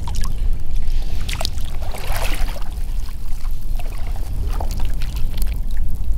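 Water splashing and trickling, with scattered short clicks, over a steady low rumble.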